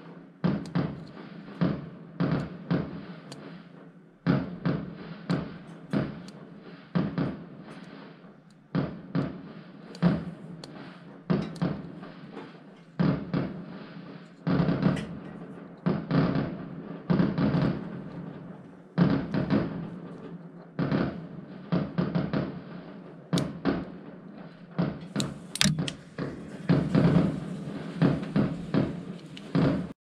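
A long series of percussive knocks, irregular at about one to two a second, each ringing out briefly.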